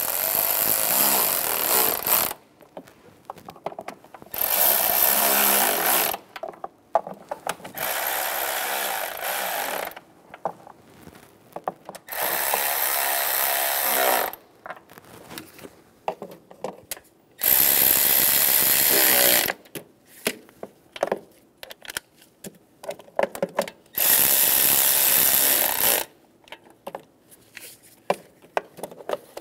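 Cordless power tool running the intake manifold bolts down snug, in six runs of about two seconds each, with small clicks between them.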